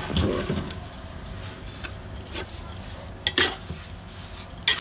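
A metal spoon scraping and clinking against a metal cooking pot as grated bottle gourd and sugar are stirred. There are a few sharp knocks, the loudest about three and a half seconds in and again near the end.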